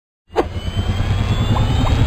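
Logo intro sound effect: after a moment of silence, a loud whoosh with a heavy low rumble sets in suddenly and holds, opening with a brief falling sweep, with a few short rising chirps near the end.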